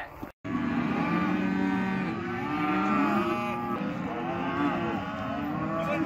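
A herd of penned cattle bawling, many long moos overlapping at once, cutting in abruptly after a split-second gap near the start.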